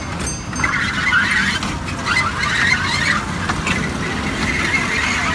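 Kiddie fairground train running along its track: a steady low hum, with a harsher, higher running noise that comes in about half a second in.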